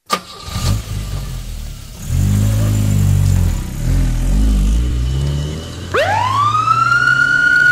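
A vehicle engine running, then about six seconds in a siren starts up, climbing quickly in pitch and holding a high steady wail.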